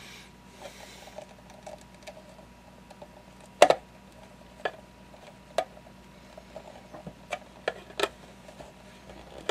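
Scattered light clicks and taps of wires and a plastic wire nut being handled and twisted on inside a plastic project box, the loudest about three and a half seconds in.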